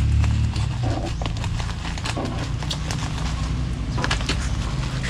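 Plastic packaging of a taped parcel crinkling and crackling, with irregular sharp clicks as fingers pick at the wrapping and tape. A low steady rumble runs underneath.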